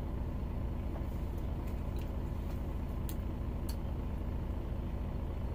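A bus engine idling, a steady low rumble heard from inside the passenger cabin. A few faint clicks come through about two, three and three and a half seconds in.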